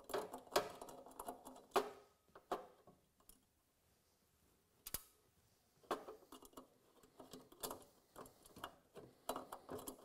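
Hand screwdriver turning out small screws: scattered faint clicks and ticks of metal on metal, with a quiet gap of about a second and a half in the middle.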